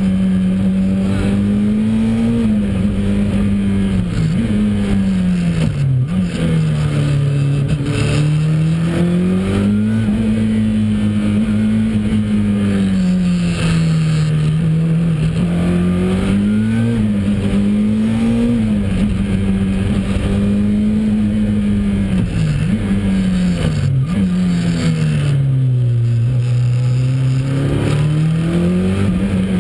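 Ford RS200 Evo's turbocharged four-cylinder engine pulling hard, heard from inside the cabin. The revs climb and drop over and over as the car is driven fast through the stage, with sharp dips every few seconds.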